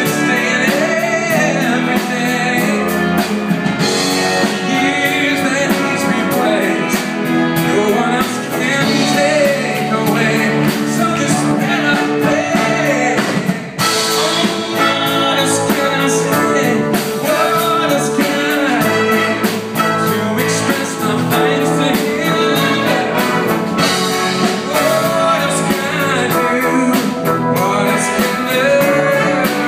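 Live worship band playing a loud rock-style passage led by electric guitar over a drum kit, with some singing.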